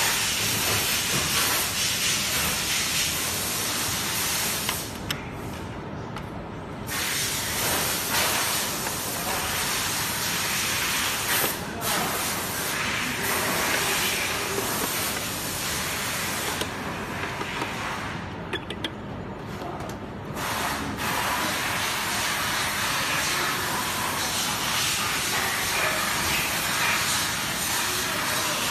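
Steady hiss with no pitch to it, thinning out briefly twice.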